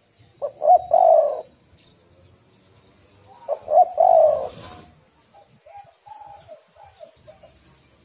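Spotted dove (tekukur) cooing, a female by the uploader's account: two loud coo phrases about three seconds apart, then a run of softer, shorter coos.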